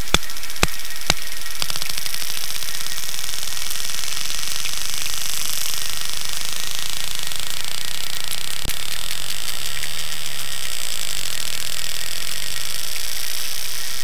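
Sperm whale clicks recorded underwater: a few loud clicks about twice a second, then, from under two seconds in, a fast, steady train of clicks that runs on like a buzz.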